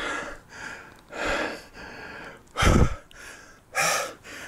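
A man panting heavily, out of breath from climbing a steep uphill path: loud breaths in and out about once a second, the one near three seconds in the loudest.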